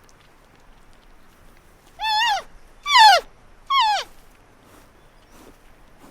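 An animal calling three times in quick succession, each a short high cry that rises slightly and then falls, the middle one the loudest.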